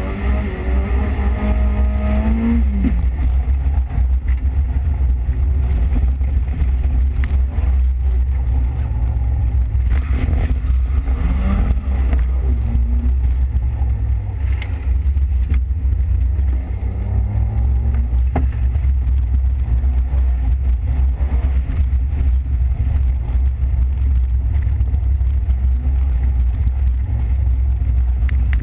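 Peugeot 205 XS's four-cylinder petrol engine driven hard, heard from inside the car: its pitch climbs for the first couple of seconds, drops at a gear change, then rises and falls again several times as it accelerates and brakes between corners, over a heavy low rumble.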